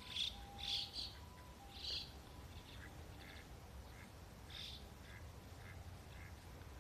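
Short, high-pitched bird calls: a quick cluster of chirps in the first two seconds, another a little before five seconds in, and fainter chirps in between.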